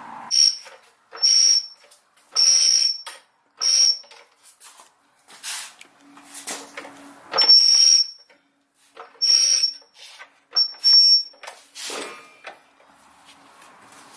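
A ratchet wrench worked in short strokes, giving about nine high-pitched metallic rasps with pauses between them, as a bolt is tightened.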